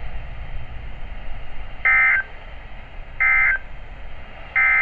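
Three short, identical bursts of NOAA Weather Radio's SAME digital data tones, warbling screeches about 1.3 seconds apart over faint radio hiss. Their brevity fits the end-of-message code that closes a broadcast warning.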